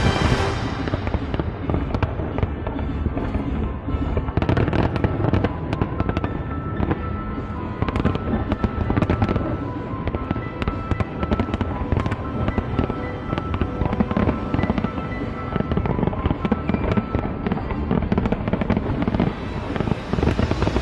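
Fireworks going off in a dense barrage of sharp bangs and crackles, thickest from about four seconds in, with music playing underneath.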